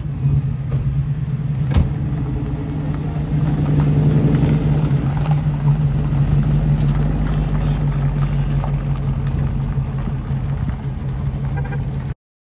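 Engine of a first-generation Chevrolet Camaro running at low speed with a steady, deep exhaust note as the car rolls slowly past, a little louder about four seconds in, then cutting off suddenly near the end.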